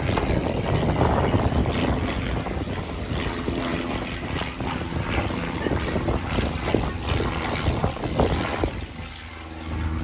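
Light propeller aeroplane flying past, its engine droning steadily, dipping briefly about nine seconds in.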